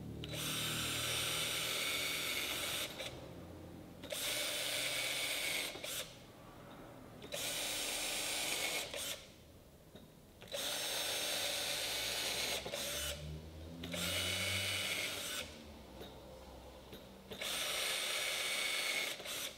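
Cordless drill with a thin bit drilling pilot holes through an MDF strip into a bed rail for screws to thread into. The drill whines steadily in about six runs of roughly two seconds each, one hole after another, with short quieter pauses between.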